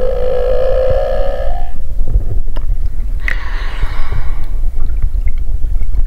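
Humpback whale 'snoring' call: a pitched, buzzing moan that ends about two seconds in, then a shorter, rougher note about a second later, over a steady low rumble.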